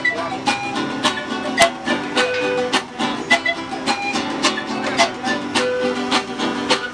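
Acoustic music on plucked string instruments such as guitars, strummed in a steady rhythm of about two strokes a second.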